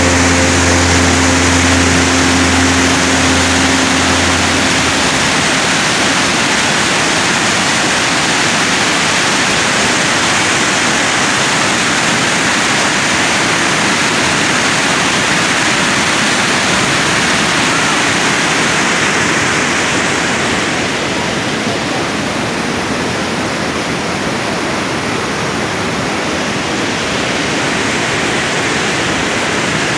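Steady rush of a cascading waterfall heard close up, white water pouring over boulders. A few held music tones fade out in the first seconds, and the water sound eases slightly about two-thirds of the way through.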